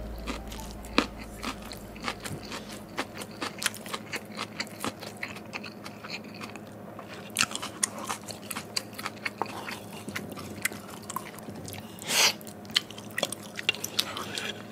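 Close-miked chewing and wet mouth clicks of a person eating a mouthful of soy sauce egg rice, with a slightly louder smack about twelve seconds in.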